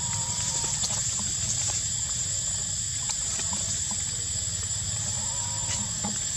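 Forest ambience: a steady high-pitched drone over a low rumble. Faint brief calls come in the first second and again near the end, with a few light rustling clicks.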